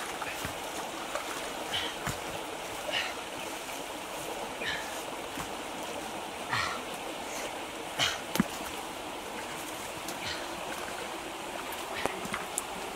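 Steady rush of moving water, with scattered light knocks and splashes a second or two apart as fruit is handled in and lifted out of a wooden dugout canoe.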